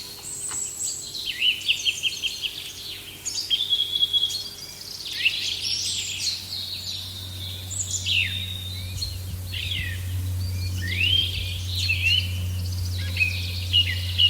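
Songbirds singing and chirping outdoors, with many short repeated chirps and quick sweeping whistles overlapping. A steady low hum comes up about halfway through.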